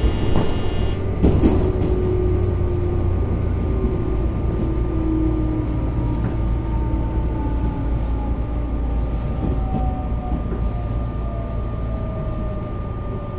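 Tobu 9000 series electric train heard from inside the motor car, running and slowing: a whine from the motors and chopper control falls steadily in pitch over a constant high tone and a low rumble of the running gear and air conditioning.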